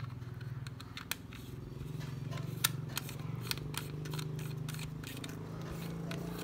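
Irregular light clicks and scrapes of a body cap being turned on a Canon 7 rangefinder's metal lens mount, with the camera body handled. The loudest clicks come a little before the middle.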